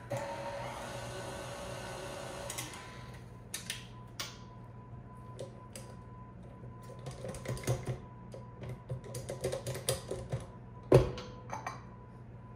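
An electric stand mixer runs steadily for about two and a half seconds, beating butter and eggs, then is switched off. After that a spatula scrapes and taps against the glass mixing bowl in many small clicks, with one louder knock near the end.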